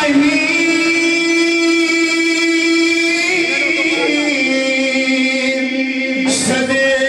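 Devotional chanting: a voice holding long, steady notes, each several seconds, stepping lower in pitch partway through, with a brief hiss about six seconds in.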